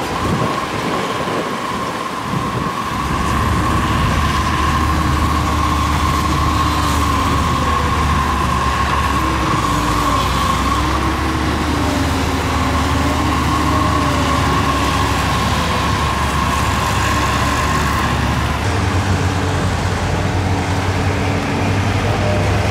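Heavy diesel earthmoving machinery (bulldozer and excavators) working, its engine drone growing louder about three seconds in, with a steady high whine that stops near the end and a wavering tone as the machines load and ease off.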